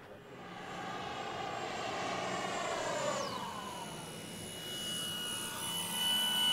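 Electric motor and propeller of an E-flite T-28 Trojan RC plane whining in flight, the pitch dropping as it passes about three seconds in. A steady high whine then builds and grows louder near the end as the plane makes a low, fast pass.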